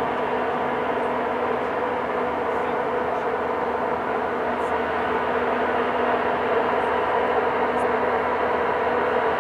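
Heavy machinery running steadily: a continuous engine drone with a few steady hum tones over a noisy rush, getting a little louder about six seconds in.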